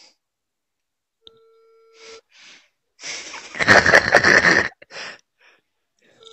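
A phone call's ringback tone, a steady beep about a second long, sounds twice about five seconds apart while the call rings unanswered. Between the beeps a man laughs loudly for over a second.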